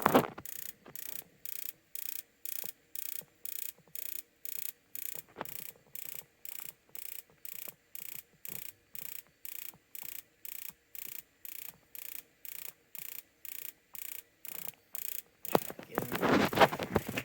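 Intermittent-pilot spark igniter on a gas boiler ticking steadily at about three sparks a second as it tries to light the pilot, which does not catch, likely because of air still in the gas line. Near the end, a louder spell of rustling and knocking.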